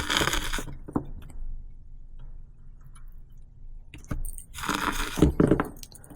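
Handling noises of small parts and tools on a workbench during connector soldering: two spells of scraping and rustling with small clicks, a short one at the start and a longer one about four seconds in.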